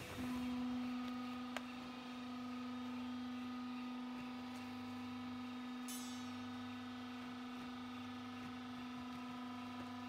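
Vertical hydraulic paper scrap baler's pump motor starting just after the button press and running with a steady hum as the ram lifts off the compressed bale. A small click early on and a short rasping noise about six seconds in.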